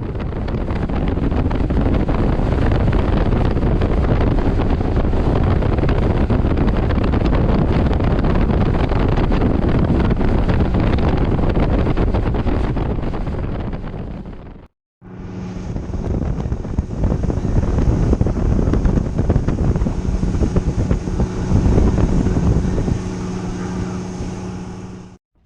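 Wind buffeting the microphone on a moving boat, over its motor running. The sound cuts off abruptly about 15 seconds in and picks up again, the second stretch carrying a steady engine hum.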